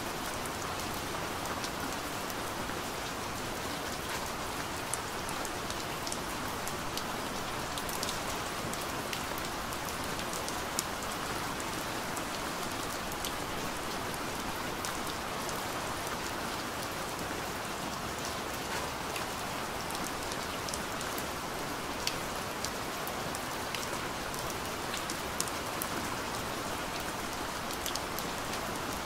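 Steady rain falling, an even wash of sound with scattered sharper ticks of single drops.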